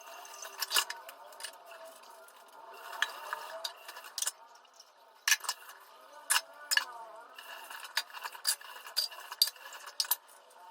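Kitchen utensils and dishes clinking and knocking together as they are washed and put away, in irregular sharp clinks.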